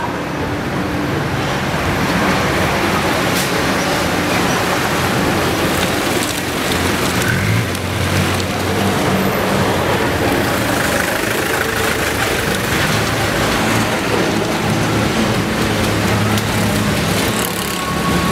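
Busy street traffic noise: a steady rumble of vehicle engines, with a low engine hum running under the general street noise.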